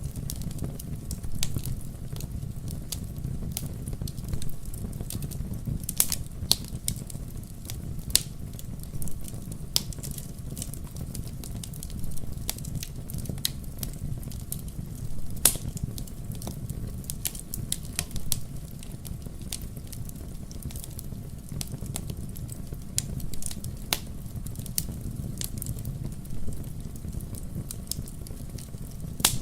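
Wood logs burning in a fireplace, with a steady low rumble of the flames and frequent irregular sharp crackles and pops.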